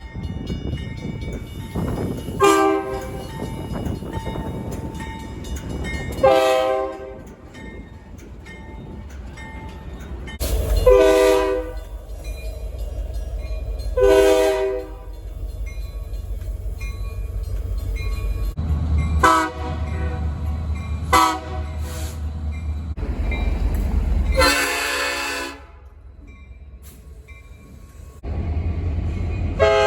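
Railroad train horns sounding in a string of short blasts, about eight in all, over the low rumble of passing trains, with a longer blast starting near the end. The sound jumps abruptly between recordings several times.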